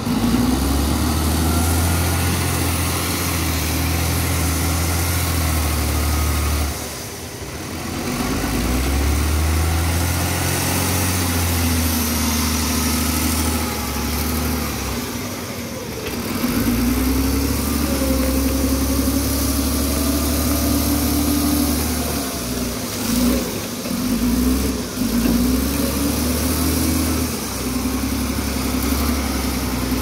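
Caterpillar 938F wheel loader's diesel engine running as the loader works a pile, rising and falling in speed with a whine that glides up and down above it. The engine sound drops away briefly about seven seconds in, and again several times a little past twenty seconds.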